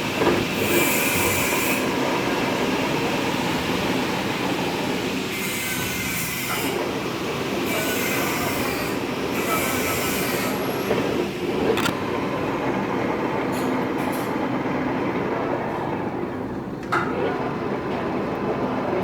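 Metal-turning lathe running: a steady, harsh mechanical noise, with a few sharp clicks in the second half.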